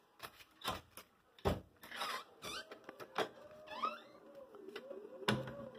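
Handling noise from a phone and a folded paper craft being moved about: a string of sharp knocks and rustles at uneven intervals, with a faint wavering tone in the second half.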